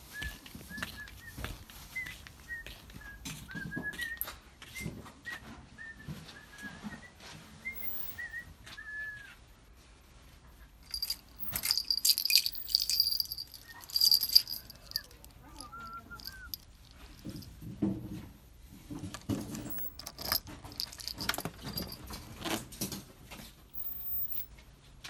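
Small birds chirping repeatedly over the first several seconds. About halfway through comes a loud burst of jangling and rustling, followed by scattered knocks and clatter as the motorcycle is handled; the engine is not running.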